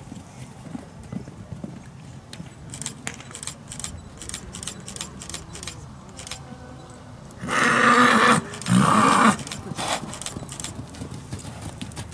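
Hoofbeats of a mare and foal moving loose over arena sand, with a horse's loud whinny in two parts about eight seconds in.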